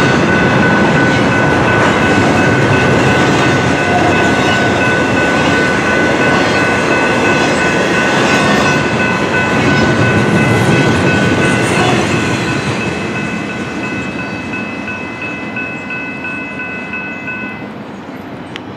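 Double-stack intermodal freight cars rolling past at speed: a steady rumble of steel wheels on rail, with a steady high ringing tone over it. The sound fades away from about twelve seconds in as the train passes.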